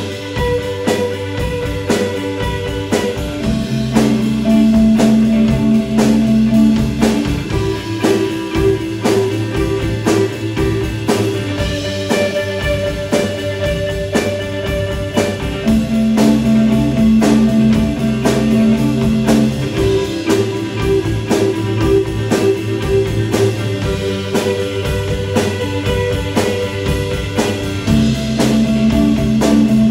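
Live instrumental rock from a band of electric guitars and drum kit: held, distorted guitar chords over a steady drum beat, in a chord pattern that comes round again about every twelve seconds.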